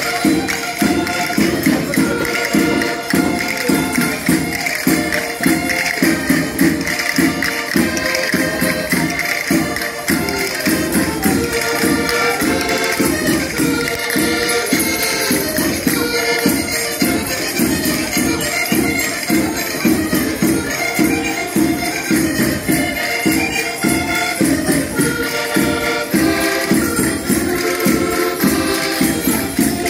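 Portuguese rusga folk music for dancing: an accordion-led tune over a quick, even beat with tambourine-like percussion, and group singing.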